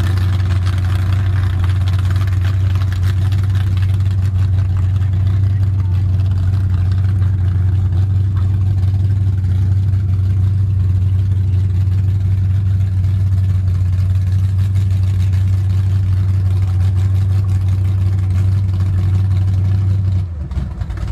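Outboard boat motors idling at the dock, a loud steady low hum. The hum drops away suddenly near the end.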